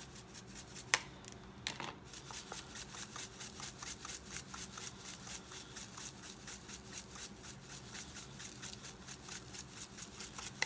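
Lemon pepper seasoning shaken hard from a shaker bottle into a bowl of olive oil: a quick, even rattle of about five shakes a second. Two sharp knocks come in the first two seconds.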